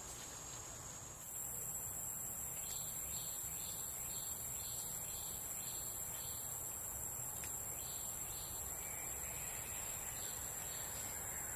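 Insect chorus: a steady high-pitched whine and hiss that grows louder about a second in, with a run of short chirps repeating about twice a second.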